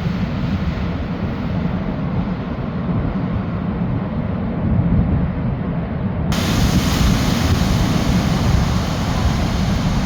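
Heavy surf and wind buffeting the microphone: a steady low rumble with a wash of noise over it, turning brighter and hissier about six seconds in.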